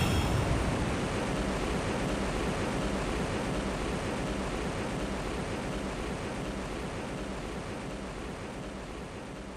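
Sound-effect blast dying away: a long, even rushing rumble, heaviest in the lows, that fades slowly and steadily.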